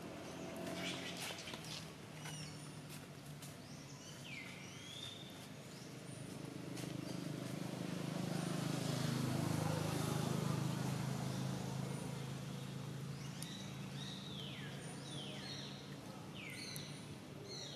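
Outdoor ambience with a bird giving short, falling chirps, once early and then several in quick succession near the end. Under it a low hum swells and fades about halfway through.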